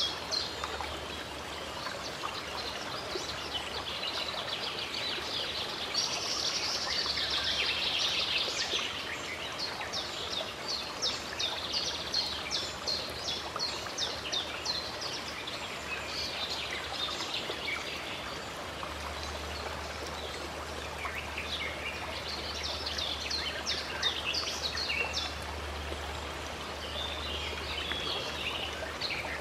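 Many small birds chirping and singing in quick short notes over the steady rush of a running stream.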